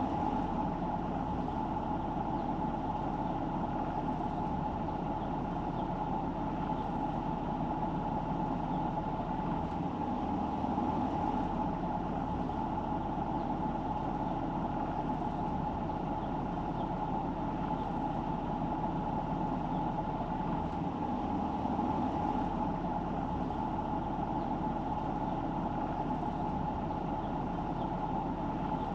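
Car driving: steady road and engine noise with a constant mid-pitched hum and no sudden events.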